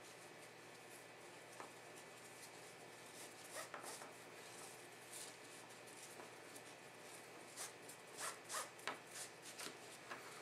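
Faint rustling and scuffing of braided rope being pulled strand by strand to tighten a monkey's fist knot, with a run of sharper scuffs near the end.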